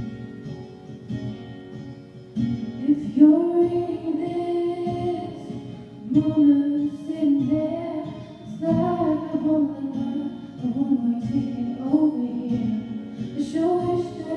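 Acoustic guitar playing a slow accompaniment; about two and a half seconds in, a female voice begins singing slow phrases with long held notes over it.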